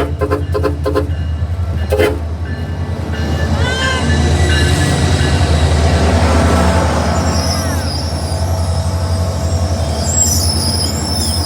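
SunRail commuter train's horn sounding in quick short toots, about three a second, ending about a second in, and then one more short toot about two seconds in. The train's engine rumbles low and steady underneath. From about four seconds on come high screeching wheel squeals that grow thin and steady near the end.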